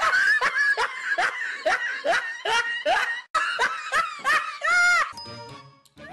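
High-pitched laughter, a run of quick 'ha' syllables about two or three a second, ending on a longer drawn-out note about five seconds in.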